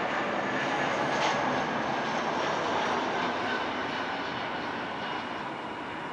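Airbus A320 jet engines running at approach power as the airliner comes in on final approach: a steady jet rush with a faint high whine, growing slightly quieter over the last few seconds.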